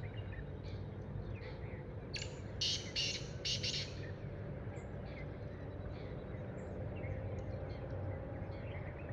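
Black francolin calling: a loud series of harsh, rapid notes about two seconds in, with small birds chirping throughout.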